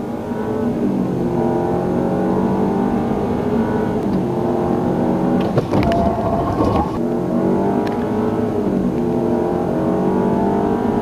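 Audi car's engine heard from inside the cabin while driving on a race track. Its pitch climbs and falls back several times as the car accelerates, with a brief clatter about halfway through.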